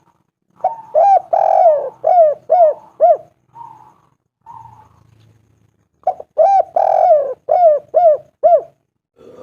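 Spotted dove cooing: two phrases of several arched, hoarse coos, one starting about a second in and the other about six seconds in, with a couple of softer notes between them.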